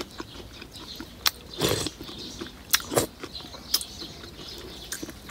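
Eating from a glass bowl of iced milk dessert: a spoon and ice knocking lightly against the glass in scattered clicks, with a short burst of chewing about one and a half seconds in.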